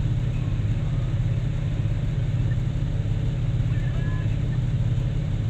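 Heavy diesel engines of a Cat 777E haul truck and a Cat 6020B hydraulic mining shovel running steadily, a deep continuous rumble with no impacts.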